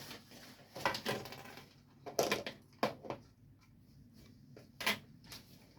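A few faint, scattered knocks and clatters of small objects being handled, with soft rustling between them. The loudest comes just before five seconds in.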